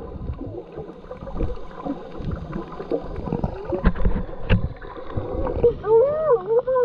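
Water gurgling and sloshing as heard by a camera microphone held underwater, with scattered clicks and knocks. Near the end a wavering, muffled hum with a rising and falling pitch comes in.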